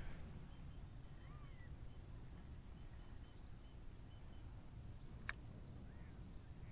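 Quiet outdoor ambience with faint, small bird chirps repeating every half second or so and a couple of short whistled calls. A single sharp click about five seconds in.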